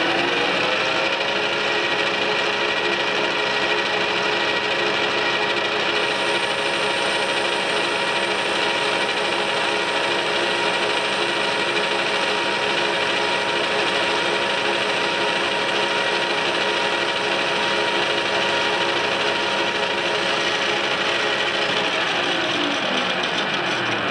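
Metal lathe running at steady speed while a boring bar takes a finishing pass inside a metal tube's bore, with a steady gear hum and whine. The spindle comes up to speed just as the sound begins, then winds down near the end with a falling pitch.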